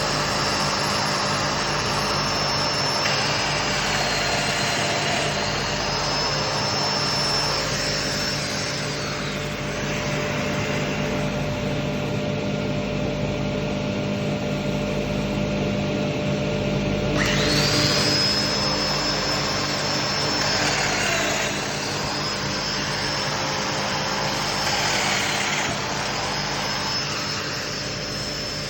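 Festool Domino jointer running with a high whine that dips in pitch and recovers each time it plunges a mortise cut, over a steady low drone that never stops. The whine drops out about ten seconds in and spins back up around seventeen seconds in.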